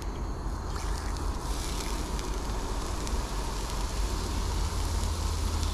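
Whole brook trout frying in coconut oil in a skillet over a stove burner: a steady sizzle and hiss that grows a little stronger about a second and a half in, over a low rumble.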